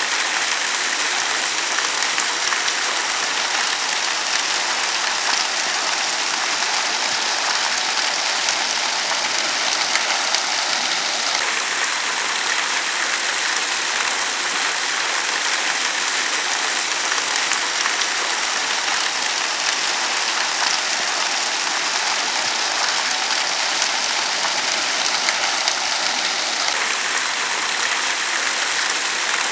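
Steady rush of falling water from a man-made waterfall: an even, unbroken hiss.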